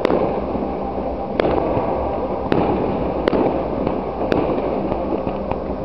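Aerial fireworks display: shells bursting overhead with about six sharp bangs, roughly one a second, over a steady noisy background.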